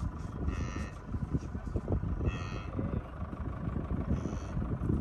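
Low rumble of a safari vehicle driving over rough grassland track. Three short, high-pitched squeaks come about two seconds apart.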